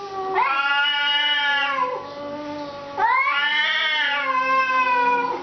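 Two domestic cats caterwauling in a standoff. There are two long, drawn-out yowls, each rising, holding and then falling in pitch, with a lower moaning tone in between.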